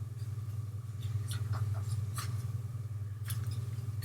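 Small dip-powder jars and their packaging being handled: a few short, light clicks and scratchy rustles scattered through, over a steady low hum.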